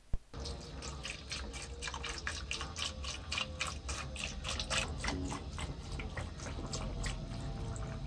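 A short click, then dark liquid pouring from a jug into a steel mug, splashing and fizzing steadily as it foams over a rusty metal part.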